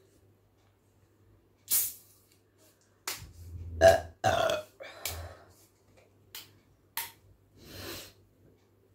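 A woman burps loudly several times in a row about three to five seconds in, bringing up gas from carbonated cumin masala soda she has just been drinking. A sharp click comes before the burps, and a few short clicks and a breathy exhale follow them.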